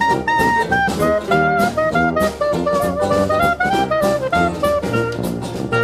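Background jazz music: a horn melody of short held notes over a drum kit.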